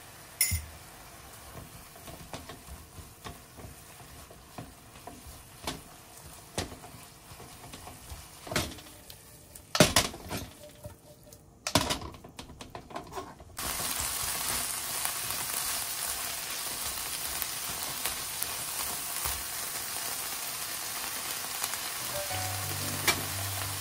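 Ground chicken and chopped shiso leaves stir-fried in a nonstick frying pan. A spatula scrapes and knocks against the pan in separate strokes, then about halfway through a steady, louder sizzle of the frying begins and carries on.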